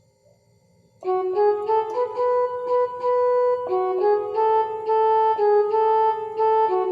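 Ringtone melody: a two-part tune of sustained pitched notes that starts about a second in.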